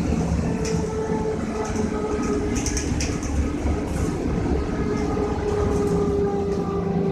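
Trolleybus running, heard from inside the cabin: a steady electric motor whine over a low road rumble, with a few short rattles from the body. The whine sags slightly in pitch near the end.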